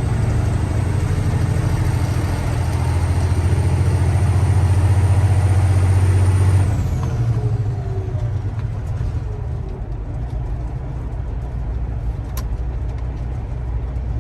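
Semi truck's diesel engine pulling steadily with a high whine over it; about halfway through, the whine falls away and the engine note drops and quietens, then runs on lower.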